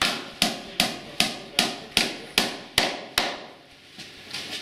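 Hammer driving nails through a metal fitting into a wooden beam: nine quick, even blows about two and a half a second, each with a short ring, stopping after about three seconds, then a couple of faint taps near the end.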